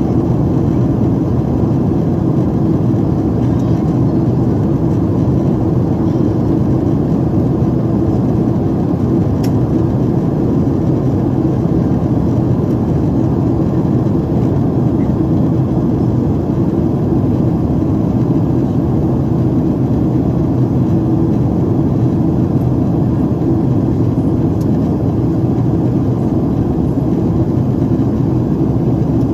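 Steady in-flight cabin noise inside a Boeing 767-400: the engines and airflow over the fuselage make a constant deep rumble, low in pitch, with no change.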